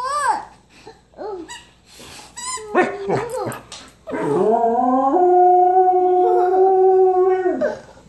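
Samoyed dog "singing": a few short whines and yips, then from about four seconds in one long howl that rises, holds a steady pitch for about three seconds and drops away at the end.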